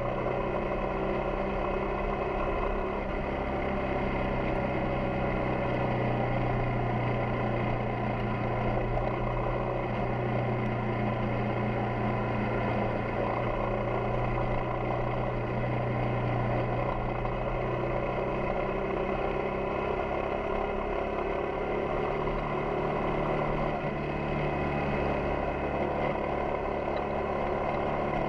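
Yamaha XTZ 250 Ténéré's single-cylinder four-stroke engine running steadily while the motorcycle is ridden downhill. Its note shifts about three-quarters of the way through.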